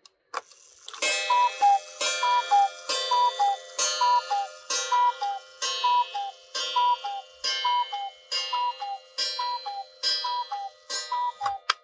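Trenkle 1-day mechanical cuckoo clock calling the hour: twelve two-note cuckoo calls, high then low, about one a second, each led by a ringing strike. The mechanism clicks once before the first call and once after the last.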